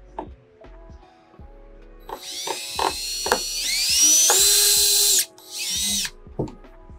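Cordless drill run in two bursts: a longer one of about three seconds whose whine rises as the motor speeds up, then stops abruptly, followed by a short second burst. Background music plays underneath.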